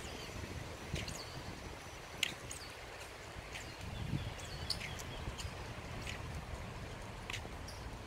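Footsteps of a person walking at an even pace on a paved path, about three steps every two seconds, each a short sharp tap over a steady low rumble.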